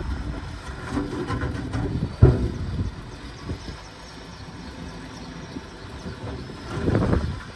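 Shantui bulldozer working, its engine running. There is one sharp, loud metallic knock about two seconds in, and the engine noise swells briefly near the end.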